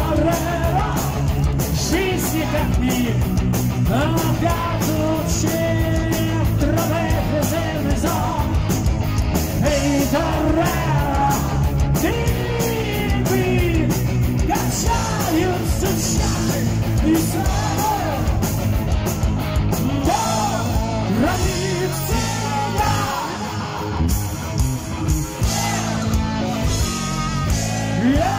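Live heavy metal band playing: a male lead singer over distorted electric guitar, bass guitar and drums. The band drops back for a moment a few seconds before the end, then comes in again.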